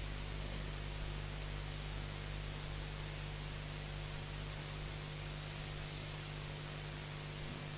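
Steady hiss with a low electrical hum underneath, unchanging throughout: the background noise of the recording or sound system, with nothing else sounding.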